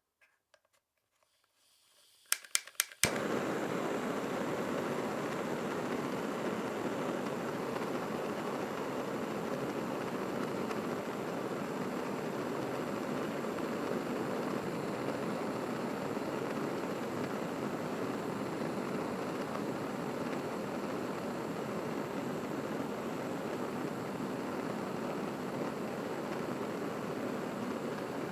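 Blowlamp being lit: a faint hiss, a few sharp clicks, then about three seconds in the burner catches and burns with a steady, even hiss of flame.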